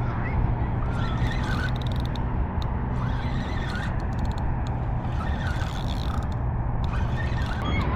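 A steady low mechanical hum like a distant engine or traffic, with birds chirping now and then and a few short runs of rapid clicking.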